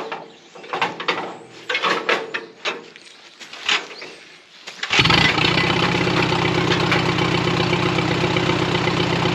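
A few scattered knocks and clicks as the tractor is readied. Then, about five seconds in, the 1945 Farmall B's four-cylinder engine catches abruptly and runs steadily. It is loud, with no muffler fitted.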